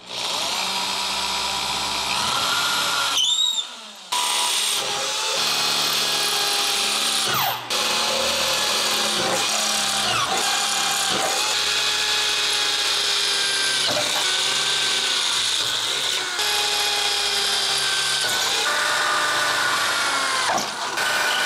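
Corded electric drill boring holes through steel sheet metal for spot (plug) welds. The drill runs almost continuously, its pitch sagging and recovering as the bit bites, with a short stop about three and a half seconds in.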